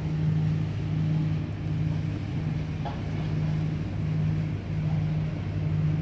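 A steady low mechanical hum that dips briefly about once a second.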